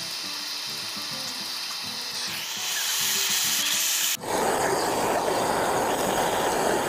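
Gas blowtorch flame hissing steadily into a small iron kadhai of melting soap, with faint background music under it. About four seconds in, after a sudden break, the flame sounds louder and deeper, a steady roar.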